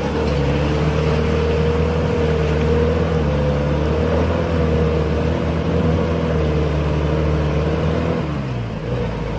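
Pickup truck engine running hard at steady high revs under load, pushing through mud and floodwater. Near the end the revs dip briefly, then pick up again.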